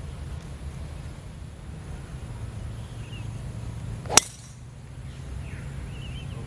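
A driver striking a golf ball off the tee: one sharp crack about four seconds in, over a steady low rumble.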